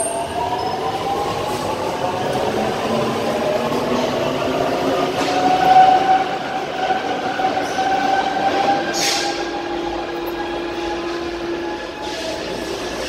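Paris Métro train pulling away from an underground platform and accelerating into the tunnel. Its motor whine rises in pitch and then levels off, with a few clicks from the wheels on the rails, and it grows fainter near the end.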